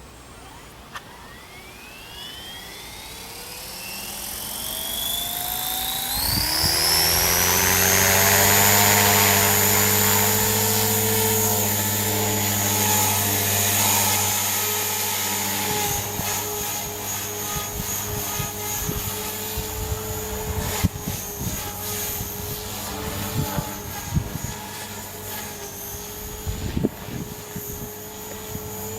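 450-size radio-controlled helicopter spooling up, its motor whine and rotor sound rising in pitch over about seven seconds, then running steadily at flying speed. A few short clicks come in the second half.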